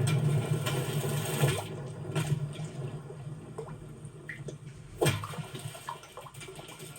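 Rain and splashing-water sound effects: a dense rush of water that eases after about two seconds into scattered drips, with one sharp splash about five seconds in.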